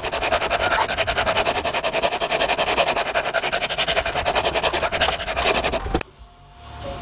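A metal file rasping on a steel knife blank in rapid, evenly spaced strokes, with a faint steady ring under them; the rasping stops abruptly about six seconds in.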